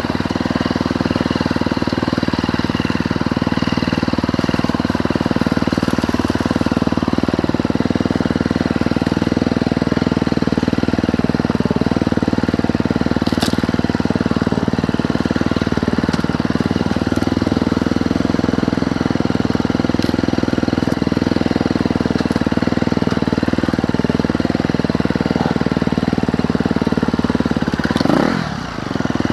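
Dirt bike engine running steadily at a low, even throttle while riding a wooded trail. Just before the end the engine note dips and drops in pitch, then climbs straight back up.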